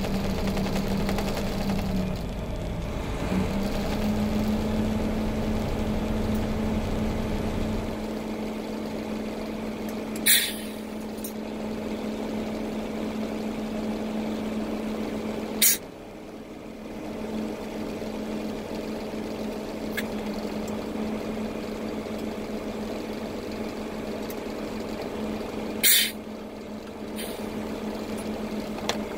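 Dump truck's diesel engine running steadily, heard from inside the cab as a constant drone, while the trailer is being dumped. Three short, sharp bursts of air hiss break in about 10, 16 and 26 seconds in.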